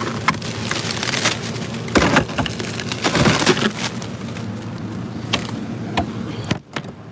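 Plastic bags of ice crackling and knocking against each other and the freezer as they are handled, over a steady low hum. A knock about two-thirds of the way through the last second as the ice freezer's door shuts, after which it goes quieter.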